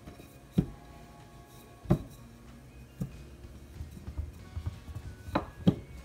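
Wooden rolling pin knocking against a granite countertop about five times, the last two close together near the end, as pie dough is rolled out, over soft background music.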